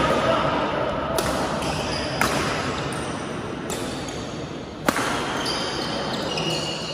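Badminton rally: rackets striking the shuttlecock four times, sharp cracks about a second or so apart, the loudest near the middle. Short high squeaks of shoes on the court floor come in the last couple of seconds.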